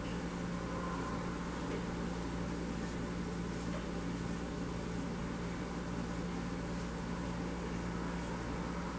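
Steady low mechanical hum with a constant tone, like a fan or air conditioner running, with faint soft ticks at intervals.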